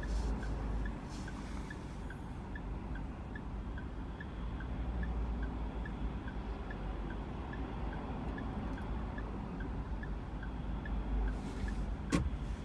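Car turn-signal indicator ticking in an even tick-tock, about two to three clicks a second, over the low hum of the stationary car heard from inside the cabin. A single sharp click sounds near the end.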